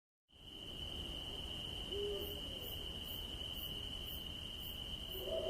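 Night forest ambience fading in: a steady high cricket trill over a low rumble, with a short owl hoot about two seconds in. Just before the end a low eerie tone begins to swell.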